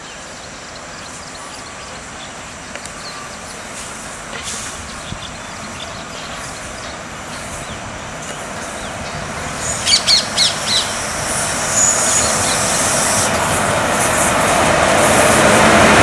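WAP-4 electric locomotive hauling a passenger train, approaching and growing steadily louder, with birds chirping over it and a quick series of four sharp calls about ten seconds in.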